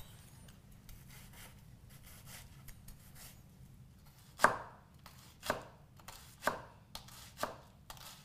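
Chef's knife chopping on a thick wooden chopping board: faint light taps at first, then firm chops about once a second from about halfway through.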